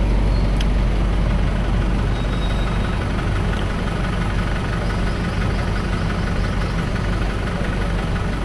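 Engine of a truck-mounted power generator running steadily with an even, low hum.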